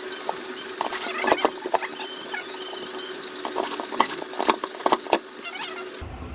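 Bare copper wire strands clicking and clattering against each other as they are twisted together into a thick cable, in two bursts, over a faint steady hum. Near the end it cuts to a low rumble.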